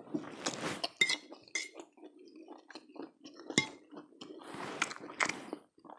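A metal fork clinking against a ceramic plate several times, sharp short clinks, amid close-miked wet chewing of spaghetti.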